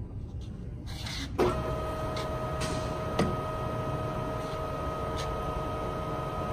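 Wilton radial arm drill's electric motor switching on with a clunk about a second and a half in, then running with a steady whine. A second click comes about two seconds later.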